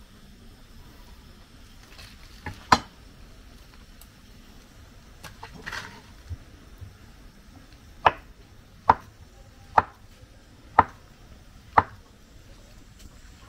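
Kitchen knife cutting plantain on a wooden cutting board, the blade knocking sharply on the board. There is one knock a few seconds in, then five about a second apart in the second half.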